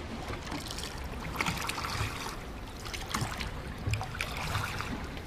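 Water lapping and trickling in small, irregular splashes over a steady low wash, with a few soft low thuds.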